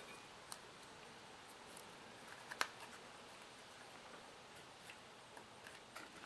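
Faint plastic clicks of a nylon zip tie being threaded and pulled tight around a wire, with one sharper click about two and a half seconds in.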